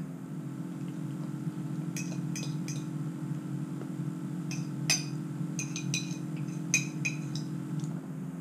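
A spoon clinking against a dish: about a dozen light, ringing clinks in short runs, as when eating from a bowl. A steady low hum runs underneath.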